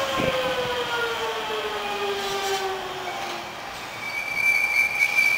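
Hankyu 8000 series electric train's Toshiba VVVF inverter whining down in pitch as the train brakes into the station, several tones falling together and fading out about three seconds in. A steady high-pitched squeal sets in about four seconds in as the train rolls slowly along the platform.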